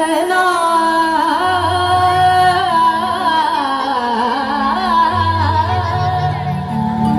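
Bhajan music: a melody with sliding, wavering notes over low bass notes that shift every second or two.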